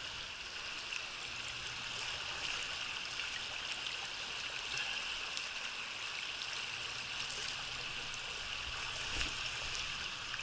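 Shallow spring creek flowing over rocks: a steady rush and trickle of moving water, with a few faint ticks, the clearest about nine seconds in.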